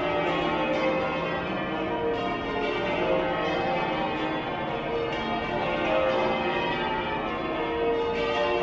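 Church bells pealing in change ringing: many bells struck in steady succession, their ringing overlapping.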